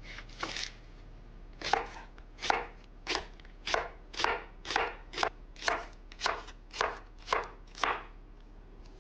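Knife chopping on a cutting board: a couple of light cuts, then about a dozen steady strokes at roughly two a second.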